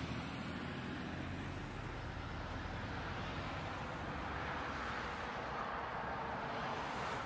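Steady engine and road noise inside a car driving at highway speed, as picked up by a dashcam.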